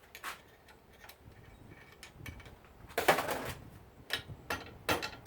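Metal parts of a water heater valve clicking and knocking as it is pried apart by hand with a pointed tool. There is a louder scraping clatter about three seconds in, then several sharp knocks near the end.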